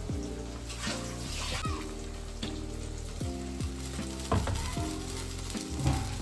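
Food frying and sizzling in a hot pan on the stove while it is stirred.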